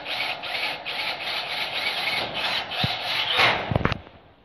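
Cordless drill driving a self-drilling screw into a C75 light-steel roof truss channel: a grinding that pulses about four times a second as the tip cuts through the steel, ending in a louder, harsher burst as the screw seats about three and a half seconds in, then stopping.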